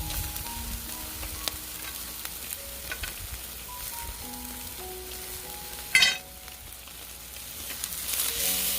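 Mackerel sizzling and crackling as it grills over a wood fire, with fine spitting ticks throughout. A short, bright, ringing sound stands out about six seconds in, and soft music of slow single notes plays underneath.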